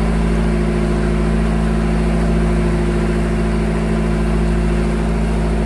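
Small boat engine running steadily at one unchanging speed.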